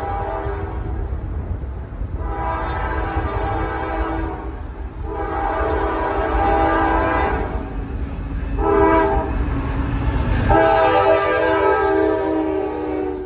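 Norfolk Southern diesel freight locomotive's air horn sounding the grade-crossing signal: one blast ends about a second in, then two long blasts, a short one and a final long one, over the low rumble of the approaching train.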